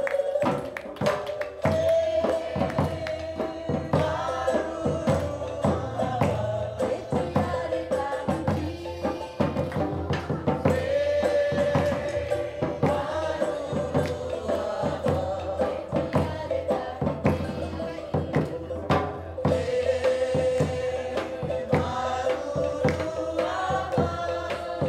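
A choir of cruise-ship crew members and Polynesian singers, men and women together, singing with drums beating a steady rhythm.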